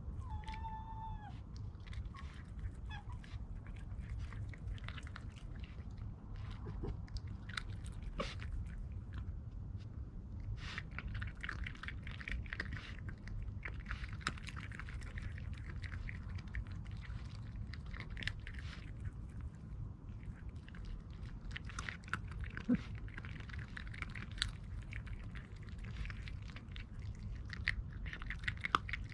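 Red fox cub giving a brief high whine about half a second in, then chewing and crunching food with irregular wet clicks and crackles.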